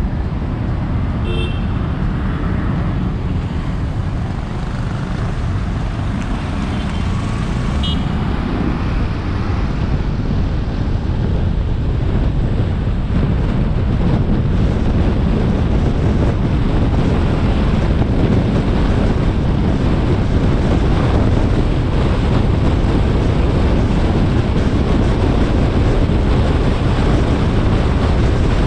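Steady road noise of a car driving on a city boulevard: low tyre and wind rumble, getting a little louder after about 12 seconds.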